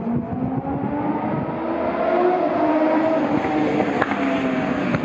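Dutch double-deck electric train moving through the yard's switches: a whine from its traction drive rises for about two seconds and then eases slightly, over the rumble of the wheels on the rails. A sharp clack about four seconds in.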